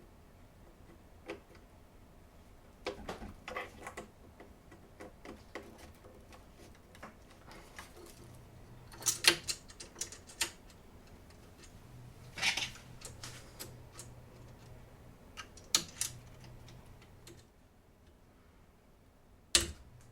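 Irregular clicks and short rustles of hands plugging cable connectors into a 3D printer's wiring, the loudest clicks a few seconds apart, with a faint low hum through the middle stretch.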